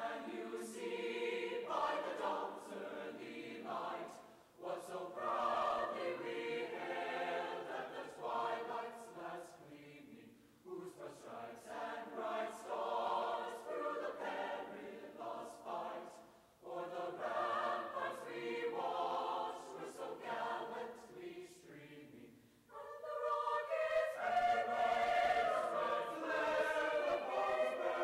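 A choir singing a cappella in long held phrases with short breaks about every six seconds, swelling louder and higher near the end.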